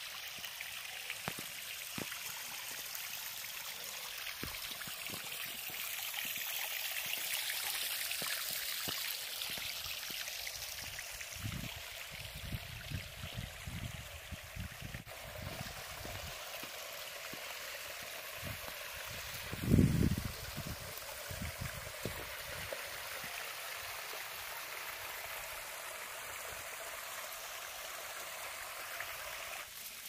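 A thin waterfall of water trickling and running over granite slabs, low in the dry season. It is steady throughout, with scattered low thumps, the loudest about two-thirds of the way in.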